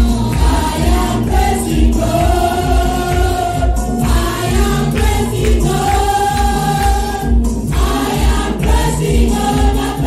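Choir singing a gospel song, with held notes over instrumental backing: a steady beat and heavy bass.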